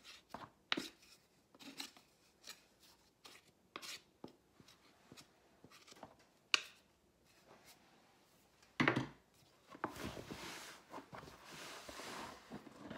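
A wooden spoon and a plastic scraper scrape and knock against a large plastic mixing bowl as thick bread dough is stirred, giving irregular taps and clunks. From about ten seconds in there is a steadier scraping and rubbing.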